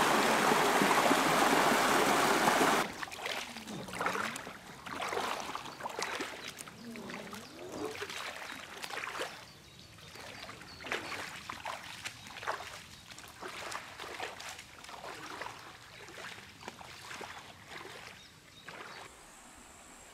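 Shallow rapids rushing over rocks, cutting off about three seconds in. Then wading footsteps splash through shallow river water about once a second while an inflatable kayak is dragged along, growing fainter and stopping near the end.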